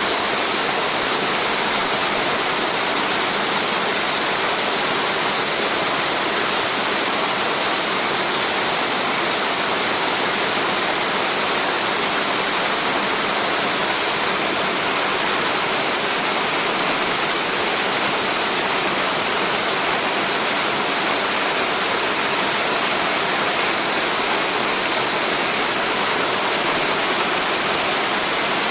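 Multi-tiered mountain waterfall rushing steadily: a dense, even hiss of falling water that does not change.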